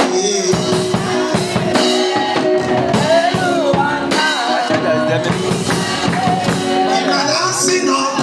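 Live church praise music with a drum kit keeping a steady beat and singing over it.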